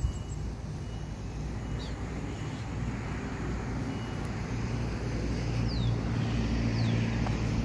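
Diesel-electric locomotives idling: a steady low engine hum that grows louder in the second half, with a few faint high chirps over it.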